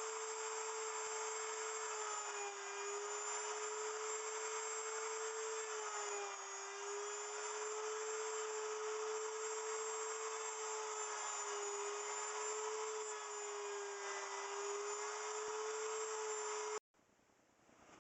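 Wood router on a router milling machine running at speed and cutting into cedar, its steady high whine dipping briefly in pitch every few seconds as the bit takes load. The sound cuts off abruptly near the end.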